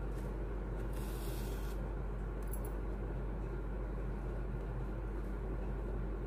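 Steady low hum with background noise, with a brief faint rustle about a second in and a faint click a little later.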